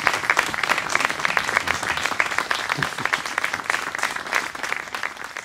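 Audience applauding: a dense patter of hand claps that weakens toward the end.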